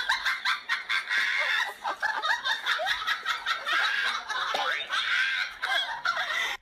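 Steady, continuous laughter: snickering and giggling that cuts off abruptly at the very end.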